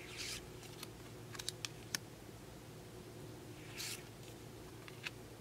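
Pokémon trading cards handled in a small stack, the front card slid off and tucked behind: two brief swishes of card sliding on card, one near the start and one about three and a half seconds later, with a few light clicks of card edges tapping in between and once near the end. A steady low hum sits underneath.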